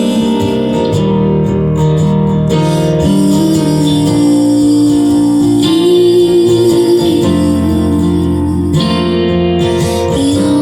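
Live band music led by acoustic guitar, with long held notes over a steady accompaniment.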